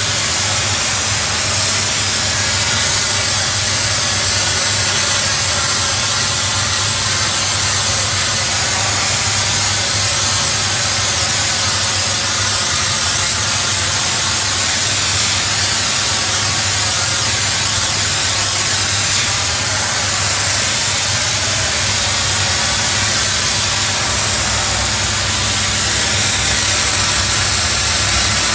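Doff superheated steam cleaner lance jetting steam and scalding water onto patio slabs: a loud, steady hiss of the high-pressure spray, with a steady low hum underneath.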